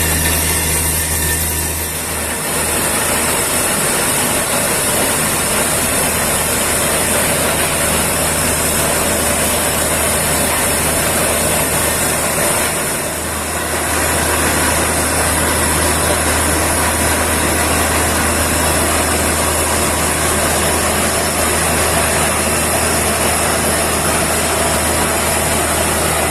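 Truck-mounted borewell drilling rig running: a loud, steady heavy-engine drone with a high hiss over it, easing briefly twice.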